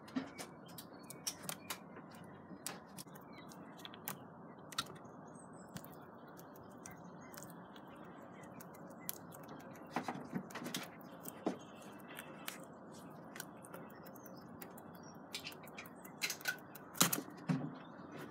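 Grey squirrel gnawing and cracking nut shells close by: irregular sharp clicks and cracks, busiest near the end, over a steady low hiss.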